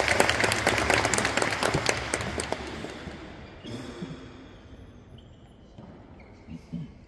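Audience applauding, dying away over the first three seconds. Then only faint room sound with a couple of soft knocks near the end.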